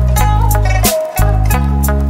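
Background music: a song with a heavy bass line and a steady drum beat.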